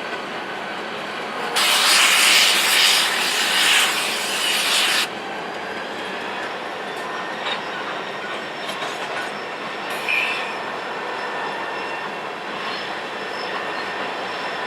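Railroad coal cars rolling steadily through a railyard, with a loud hiss starting about a second and a half in that lasts about three seconds and cuts off suddenly.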